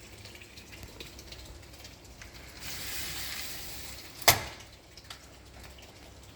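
A heater being turned up: small mechanical clicks of its control, a hiss lasting about a second and a half, then one sharp, loud click a little after four seconds in, followed by a few fainter clicks.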